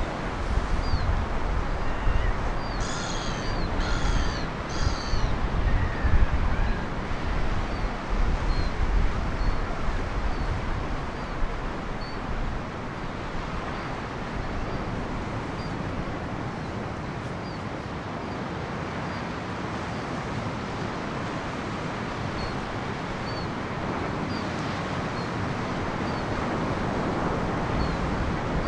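Surf breaking and washing over a rocky shore, with wind buffeting the microphone through roughly the first half. A bird calls three times about three to five seconds in, and faint short high chirps repeat about once a second throughout.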